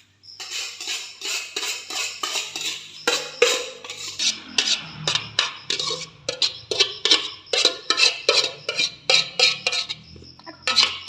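A utensil knocking and scraping against dishware over and over, about two or three strokes a second.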